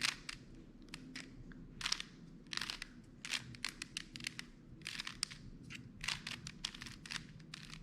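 Plastic Rubik's cube being twisted by hand through an algorithm: an irregular run of sharp clicks and short rasping scrapes as its layers turn.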